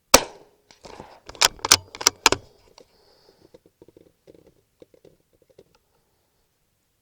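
A single sharp .22 LR rifle shot with a short ringing tail, followed by four sharp metallic clacks and a scatter of faint clicks.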